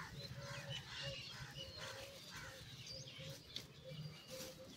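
Faint background bird calls: high chirps, and a short note repeated again and again at the same low pitch.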